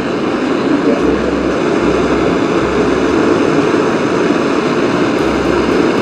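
Handheld gas torch flame burning with a steady rushing hiss as it heats the hot end of a Hofler thermoacoustic tube's plate stack.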